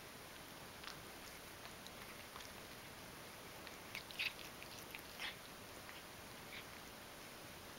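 Ragdoll cat squirming and rubbing itself on a glass-topped table: a handful of short, soft sounds over a faint steady hiss, the loudest a little after four seconds and again a second later.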